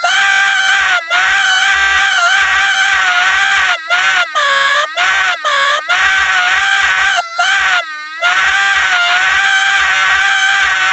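A loud, very high-pitched scream held almost without a break, its pitch wavering up and down, with a few short gaps where it catches breath or cuts out.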